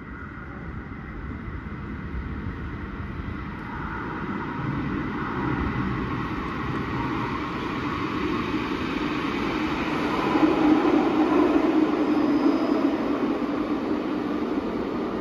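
Euskotren 900 series electric train approaching through the tunnel and pulling into the underground station, its rumble growing steadily louder and at its loudest about ten seconds in.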